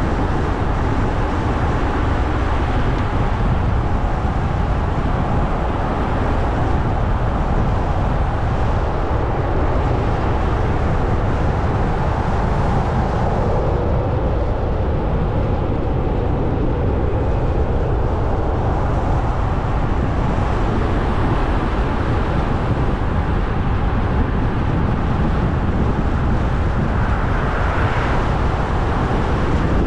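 Car driving steadily along a road: constant engine and tyre noise, with a brief swell about two seconds before the end.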